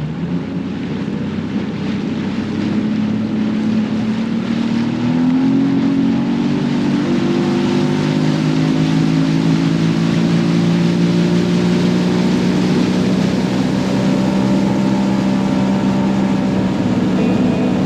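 Boat's outboard motor speeding up, its pitch climbing for a few seconds, then running steadily at speed with a rush of wind and water.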